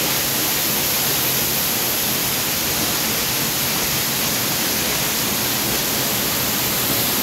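Waterfall pouring close by: a steady, even rushing noise with no let-up.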